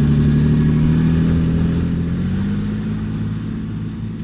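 Off-road vehicle engine under load, pushing through shallow, loose snow with no traction. It runs high for about two seconds, then eases off slightly in pitch and loudness.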